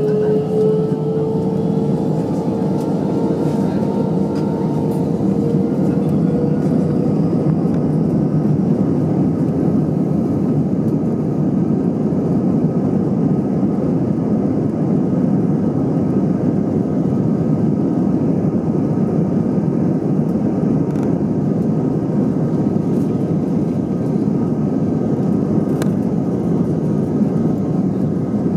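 Airbus A319 jet engines at takeoff power: a whine rising slowly in pitch over the first few seconds fades into a steady, loud rush of engine and rolling noise.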